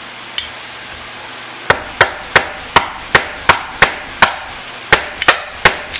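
Hammer blows on metal, about a dozen sharp ringing strikes at roughly three a second, starting under two seconds in. They are hitting at a seized screw on a bench vise to break it loose.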